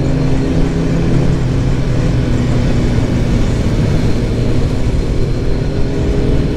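Sport motorcycle engine running at steady revs, holding one pitch with no revving.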